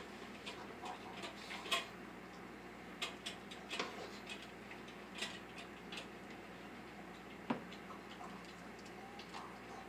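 Metal ladle clinking and scraping in a pot of soup as it is ladled into a ceramic mug: faint, irregular taps and clicks, with one sharper knock about seven and a half seconds in.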